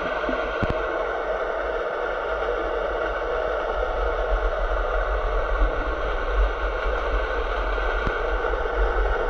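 Steady muffled underwater noise picked up by a submerged camera: a hiss with a low rumble beneath it and a couple of faint knocks.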